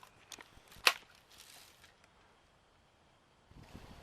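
A single sharp crack of a BB or pellet gun shot about a second in, with a couple of faint clicks just before it.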